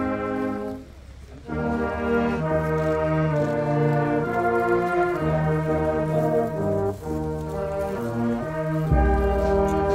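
Slow, solemn brass music played in long sustained chords, with a brief pause about a second in and a deep bass note coming in near the end.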